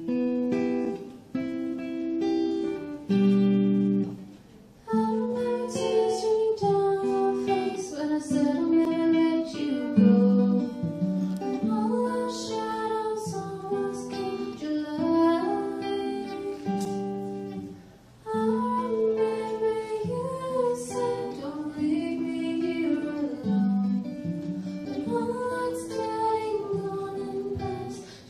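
Live performance: an acoustic guitar is picked alone at first. About five seconds in, a young woman's voice comes in, singing the melody over the guitar.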